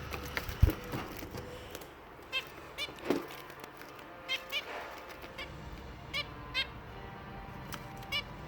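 Pet finches giving short chirping calls, about ten of them at irregular intervals, with one low thump about half a second in.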